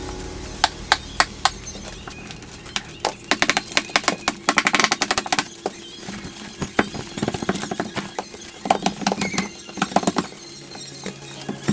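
Sharp clicks and knocks of carpet being fastened onto stair steps: a few single strikes, then quick clusters of many.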